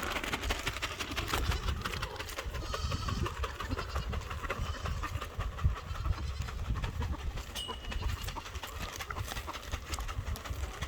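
Chickens calling softly over a steady low rumble on the microphone, with many scattered clicks.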